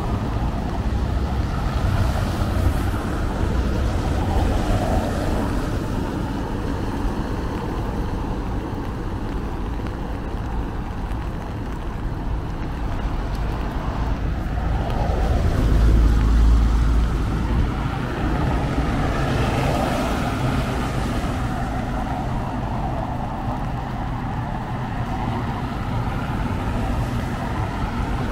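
Street traffic on a wet road: vehicles passing with tyre hiss and engine rumble. One vehicle passes loudest about halfway through, its sound dropping in pitch as it goes by.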